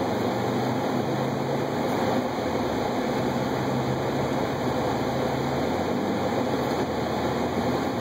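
Heard from inside the cabin, a 2012 Subaru WRX's turbocharged flat-four engine hums steadily while the car drives through snow on winter tyres, with steady tyre and road noise. The engine note shifts lower a little past halfway.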